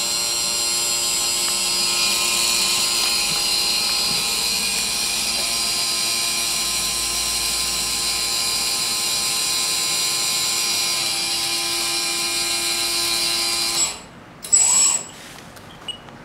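Small electric motor of a 1/14-scale RC tipper trailer's telescopic lift ram whining steadily while the dump bed is raised. It cuts off suddenly about fourteen seconds in, and a short, louder noise follows about a second later.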